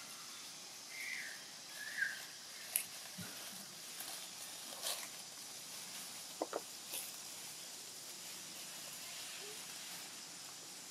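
Long-tailed macaques feeding and moving in dry leaf litter: two brief high squeaks about one and two seconds in, then a few sharp crackles and rustles of dry leaves, over a steady faint hiss.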